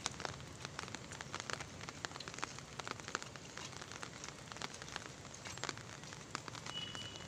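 Light rain: scattered raindrops ticking irregularly on nearby surfaces, over a faint steady outdoor hiss.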